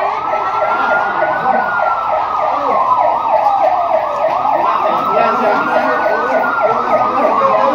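Two sirens sounding at once: one a slow wail rising and falling over about four seconds, the other a fast repeating yelp.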